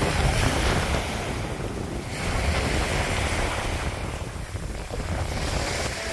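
Sea waves breaking and washing up on a sandy beach, the surf swelling and easing, with wind buffeting the microphone.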